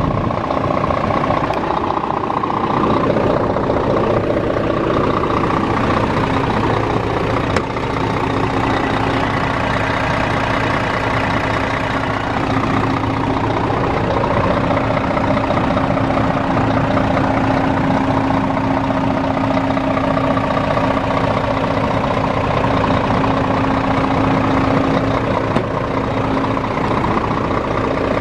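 Scania R500 Euro 6 truck's diesel engine idling steadily, with an even, unchanging hum.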